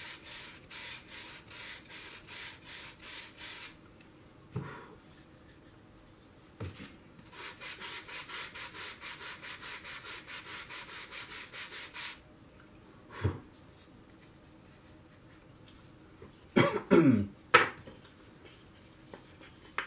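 Balsa wood being rasped in two runs of quick, even strokes, about five a second, with a few light knocks of wood pieces between them. A short cough near the end.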